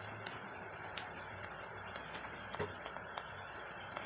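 Small sweet maida puris deep-frying in hot oil: a steady sizzle with scattered pops and crackles.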